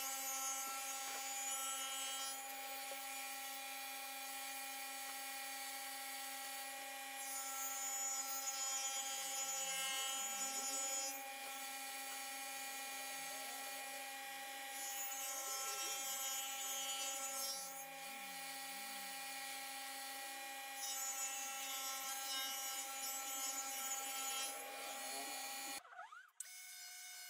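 Table saw running with a steady whine while a pine board is fed through it, about four cuts in all, each a few seconds of harsher, hissing noise over the motor. The sound drops out briefly near the end.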